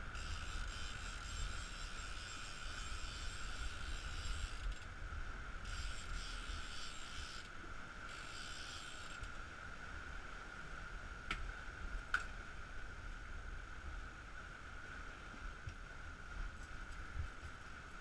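Steady rush of wind and wake water at the stern of a sailing boat under way, with a constant high-pitched whine. Stretches of hiss come and go in the first nine seconds, and two sharp clicks sound a little after ten seconds in.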